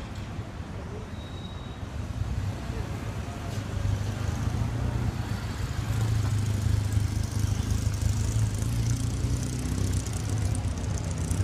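Street traffic: a motor vehicle's engine running with road and tyre hiss, growing louder about halfway through as it draws nearer.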